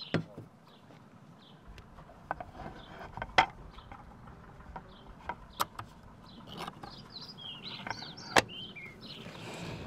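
Scattered clicks and knocks of hands handling a drink tumbler and a wooden cutting board with its knife on a hard tabletop: a short knock right at the start, and the two loudest wooden knocks about three and a half and eight and a half seconds in. Birds chirp faintly between the knocks.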